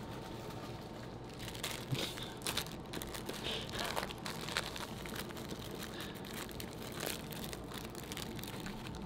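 Stiff camouflage nylon fabric rustling and crinkling as it is folded and handled, with irregular small rustles and clicks. A faint steady hum runs underneath.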